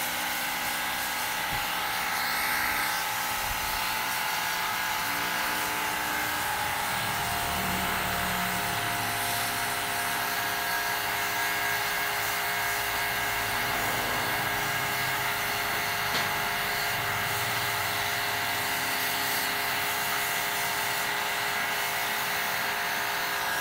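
Pressure washer running steadily: a small motor's whine with the hiss of its water jet spraying through the fins of a car air-conditioning evaporator coil to wash the dirt out.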